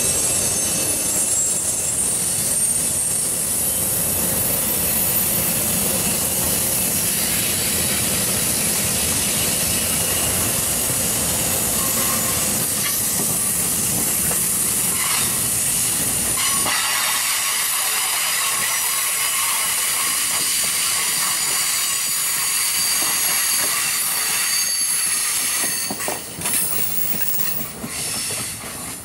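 NJ Transit Multilevel bilevel coaches rolling past close by: a steady rumble under hiss and high-pitched wheel squeal. The low rumble falls away about two-thirds of the way through, and the sound changes abruptly and gets quieter near the end.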